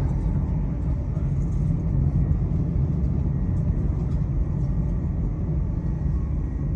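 Train running along the track, heard from inside the carriage: a steady low rumble of wheels and running gear.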